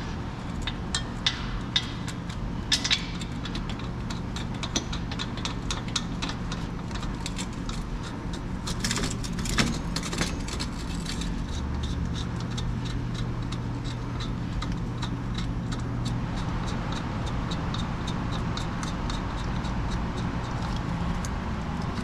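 Metal tools and brake parts clicking and clinking during rear drum-brake and hub work, with a longer scraping rattle about nine seconds in, over a steady low workshop hum.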